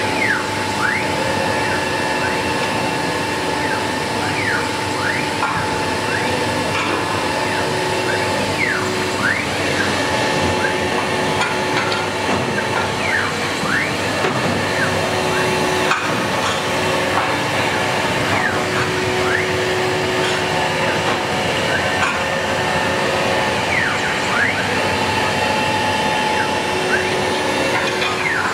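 CIMTECH 1325 CNC wood router cutting a door-panel pattern into an MDF sheet: a steady spindle whine over a machine hum, with short whines that dip and rise again in pitch every second or two as the axis drives slow and speed up.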